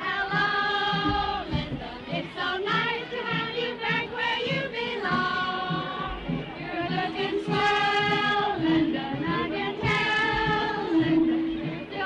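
Live music: a slow tune of long held notes following one another.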